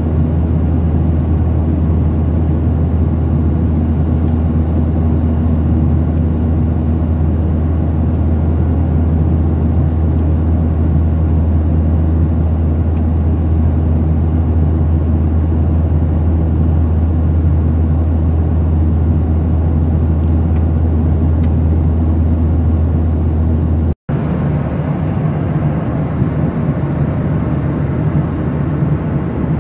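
Jet airliner cabin noise in flight, heard from a window seat over the wing: a steady, loud drone of the engines and rushing air, strongest in a deep low hum. It drops out for an instant about three-quarters of the way through, then carries on with a slightly different tone.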